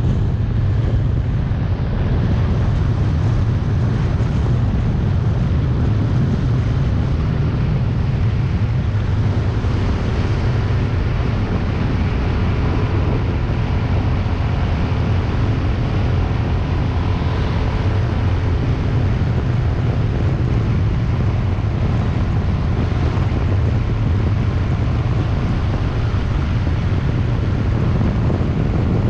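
Wind buffeting a helmet-mounted camera's microphone while riding a small scooter: a loud, steady low rumble, with the scooter's engine hum faint underneath.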